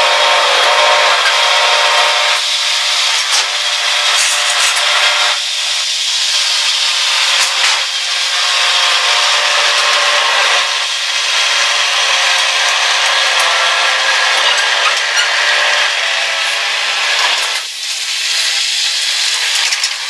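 Bobcat skid-steer loader's engine running steadily as the machine drives and works close by, its note changing about two seconds in and again near the end.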